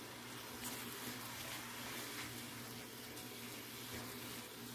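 Grated carrot cooking in a frying pan: a soft steady sizzling hiss, with a few light scrapes of a wooden spoon stirring it.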